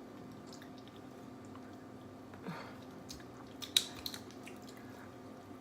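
Faint chewing and wet, squishy eating sounds, with a few sharp clicks close together near the middle.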